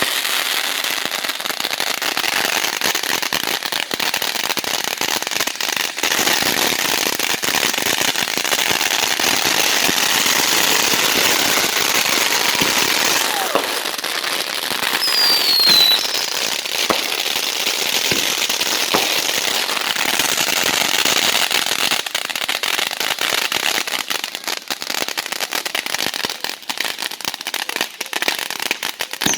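Consumer fireworks going off: a dense, continuous crackling of rapid pops, with a short falling whistle about halfway through.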